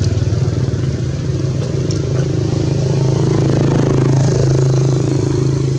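An engine running steadily with a low hum, a little louder in the middle.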